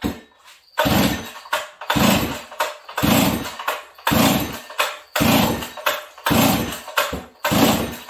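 Stihl 038 two-stroke chainsaw being pulled over on its recoil starter, seven hard pulls about once a second, the engine cranking without catching. It is a hard cold start, which the owner traces to a faulty choke.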